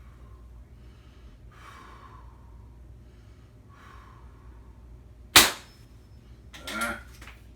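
A Beeman P17 single-stroke pneumatic air pistol fires a dart once, a single sharp crack about five seconds in. Fainter handling sounds come before it, and a shorter, softer sound follows a little over a second later.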